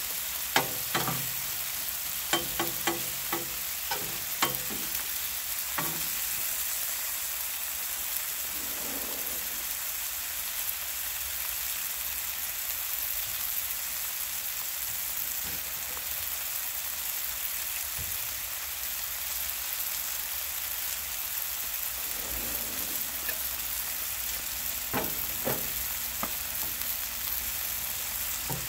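Chicken thighs and a creamy green bean casserole sizzling steadily on a Blackstone flat-top griddle. A metal spatula scrapes and taps on the griddle steel as the chicken is flipped during the first several seconds, and again briefly near the end.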